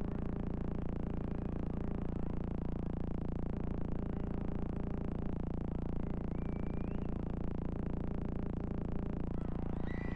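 Steady low rumble of a crowded indoor arena's ambience, with a brief faint rising whistle-like tone about six seconds in.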